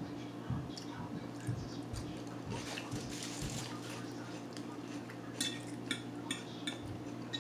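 Eating at a plate: cutlery clinking against dishware several times near the end, with soft chewing sounds and a few dull thumps, over a steady low hum.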